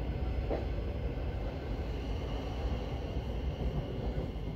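Steady running rumble of a Thameslink electric train, heard from inside the carriage while it runs between stations. A faint knock comes about half a second in.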